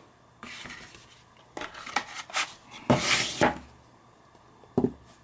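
Plastic DVD case and its cardboard slipcover being handled: several short rubs and scrapes, with a longer sliding rub about three seconds in, and a brief knock near the end.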